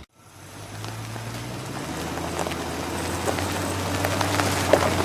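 A dubbed-in vehicle engine sound effect running at a steady low pitch, fading in after an abrupt cut to silence and growing louder, with a light hiss over it.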